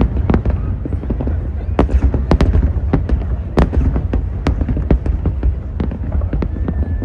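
Fireworks bursting in rapid, irregular cracks and pops over a continuous low rumble, with crowd voices underneath.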